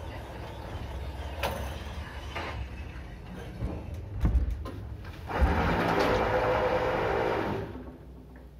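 KMZ passenger elevator heard from the roof of the car: a low rumble of travel, with clunks about four and five seconds in. Then comes a louder, steady mechanical whirring for about two seconds, which falls away near the end.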